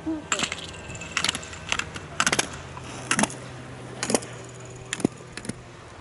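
About a dozen sharp clicks and clatters at irregular intervals, some in quick pairs, over a low steady hum.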